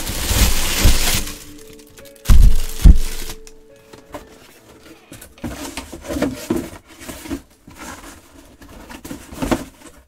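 Plastic bag crinkling and cardboard box scraping as a full-size football helmet is pulled out of its box, with two heavy thuds about two and three seconds in, then softer rustles and knocks as the bagged helmet settles on the table.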